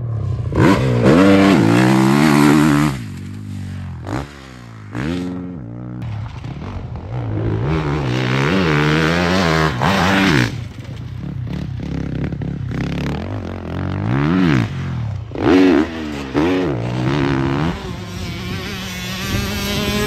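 Honda CRF450RW factory motocross bike's 450 cc single-cylinder four-stroke engine revving up and down repeatedly as it accelerates, shifts and backs off around the track. Short, sharp throttle blips come about three quarters of the way in, as the bike clears a jump.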